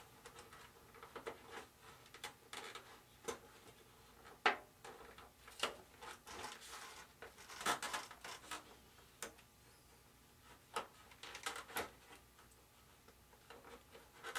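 Small, irregular clicks and taps of tweezers and wire working inside a wooden RC airplane wing, as servo wires are pulled through the bulkheads. The taps come unevenly, a few at a time, with brief quiet gaps, and two sharper knocks stand out, one about four and a half seconds in and one just before eight seconds.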